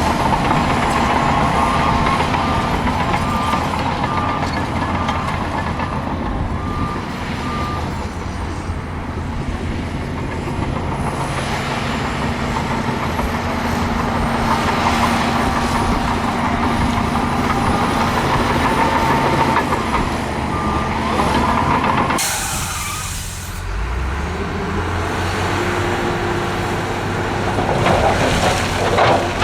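Heavy diesel earthmoving machinery running steadily, with a reversing alarm beeping through the first several seconds and briefly again later. A short sharp hiss of air, like a truck's air brake releasing, about three-quarters of the way through.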